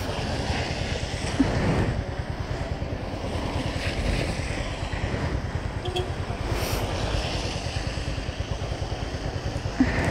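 Motorcycle engine running at low speed in city traffic, with a fast even pulse of firing, under a steady hiss of heavy rain and wet road.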